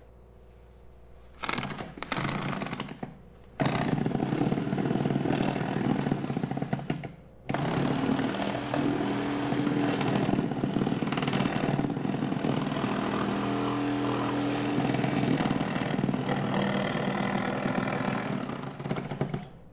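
Reciprocating saw (sawzall) cutting through a boat's fiberglass hatch coaming. It starts with two short bursts, then runs steadily, stops briefly about seven seconds in and cuts on.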